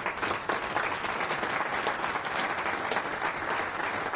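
Audience applauding, starting suddenly and holding steady as a dense patter of many hands clapping.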